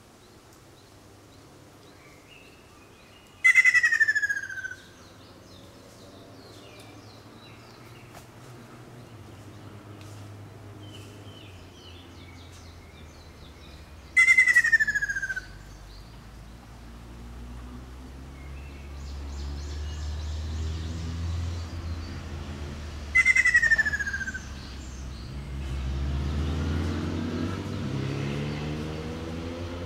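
Ruddy kingfisher calling three times, about ten seconds apart; each call is a loud, falling trill lasting about a second. Fainter bird notes sound between the calls, and a low rumble swells in the background in the second half.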